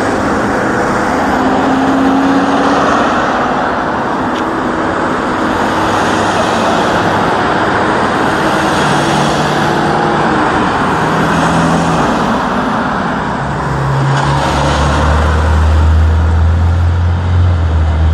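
Road traffic: cars driving along a street, a steady rush of tyre and engine noise. A low engine hum close by grows loud about three-quarters of the way in.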